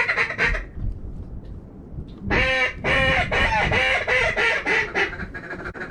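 Duck quacking: a short burst of loud quacks at the start, then a long run of rapid, repeated quacks beginning about two seconds in, over a low rumble of wind on the microphone.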